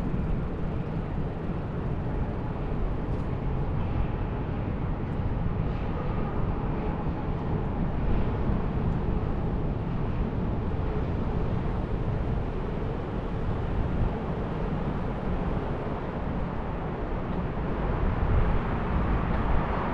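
Steady outdoor city noise: a low rumble of traffic and wind with no distinct events, growing a little louder near the end.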